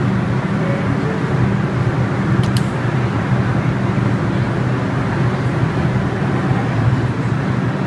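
New York City Subway R142 train standing at the platform, its equipment giving a steady low drone, with a brief sharp clack about two and a half seconds in as the doors shut.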